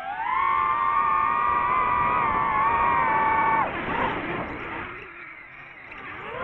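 DJI FPV drone's motors and propellers whining at high throttle, pitch rising at the start and holding steady for a few seconds. The whine drops away sharply about four seconds in as the throttle is cut and the drone tips over toward the sky, then rises again near the end as power comes back.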